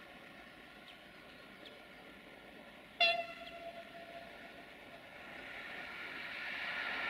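Siemens Desiro VT642 diesel multiple unit sounding one short horn blast about three seconds in, the tone hanging for about a second. Its running noise then grows steadily louder as it approaches.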